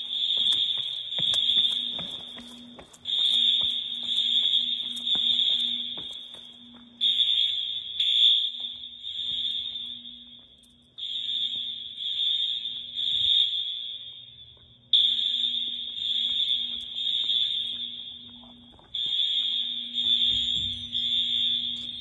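High-pitched school fire alarm horns sounding in the temporal-three evacuation pattern: three blasts about a second apart, repeating every four seconds, during a test of the alarm system.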